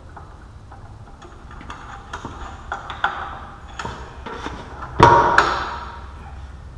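Metal-on-metal clicks and knocks as a Cat 40 taper tool holder is worked up into a Lagun knee mill's spindle and lined up on its drive dog. About five seconds in comes a sharp ringing metal clank, then a second one.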